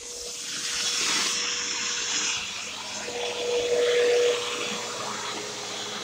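Vacuum cleaner motor running with a steady hum and airflow rush. It grows louder over the first second and swells again for about a second, three to four seconds in.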